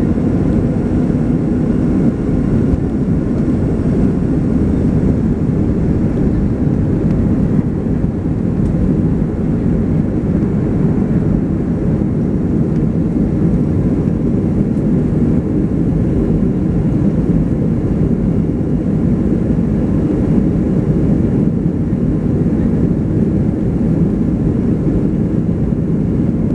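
Steady low roar of a Boeing 737-300's CFM56 jet engines at takeoff thrust, heard inside the cabin over the wing during lift-off and initial climb.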